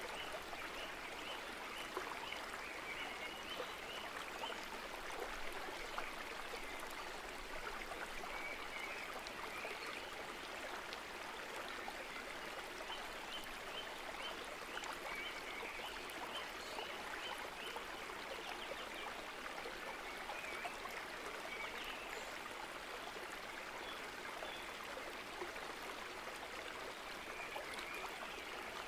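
Steady rushing noise like running water, with faint short high trills recurring every few seconds.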